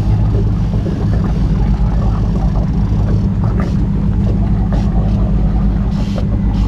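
Boat engine running steadily with a low, even hum while trolling. A few brief hisses come over it.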